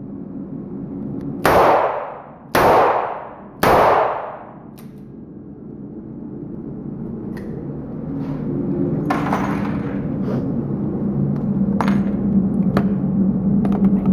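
Three shots from a Ruger GP100 .357 Magnum revolver, about a second apart, each ringing off the walls of an indoor range. A few light clicks and clinks of handling follow, while a steady low hum builds.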